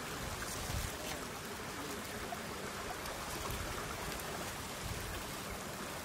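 Steady hiss of open-air ambience over water, with a few low wind buffets on the microphone.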